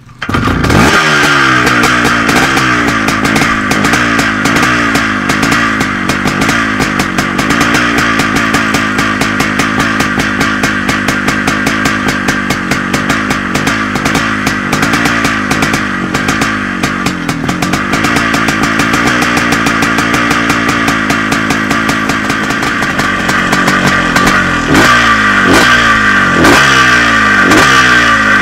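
CZ 360 single-cylinder two-stroke motocross engine firing up and running, its pitch wavering as the throttle is held just off idle. Near the end it is blipped in a string of quick revs.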